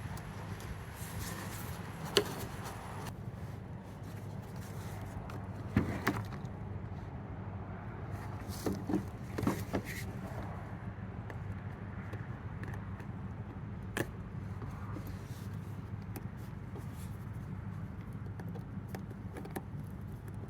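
Scattered metallic clicks and scrapes as a Leatherman Juice Xe6 multi-tool's can opener works a hose clamp onto a Stihl blower hose, with a quick cluster of clicks about nine seconds in. A steady low hum runs underneath.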